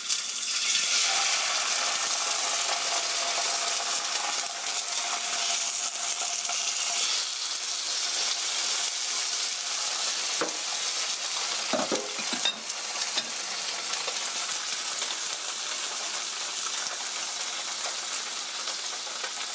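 Slabs of tofu frying in hot oil in a stainless steel pan: a loud, steady sizzle with spattering from the water in the tofu, easing a little after the first several seconds. A few light knocks come a little past the middle.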